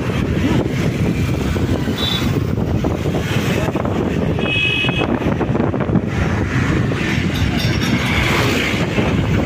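Wind buffeting a phone microphone over road and traffic noise during a motorbike ride through city traffic. Two short high beeps cut through, about two seconds in and again around four and a half seconds in.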